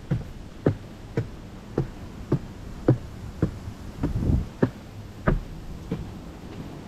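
Footsteps of a person walking at a steady pace on a trail, about two steps a second, with a brief scuff about four seconds in.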